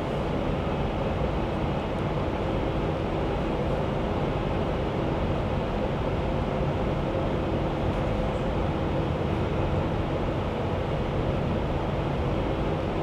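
Steady airport apron noise: the even roar of jet engines at taxi power, with a faint steady hum running through it.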